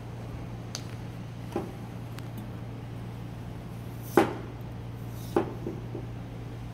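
A few short, sharp knocks in a kitchen, the loudest about four seconds in and another just over a second later, over a steady low hum.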